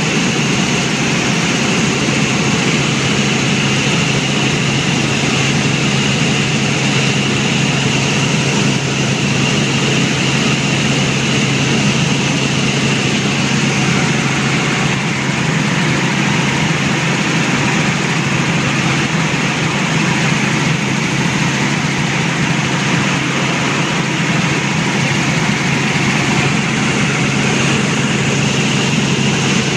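Helicopter in flight, its engine and rotors giving a loud, steady drone with a low hum, heard from on board.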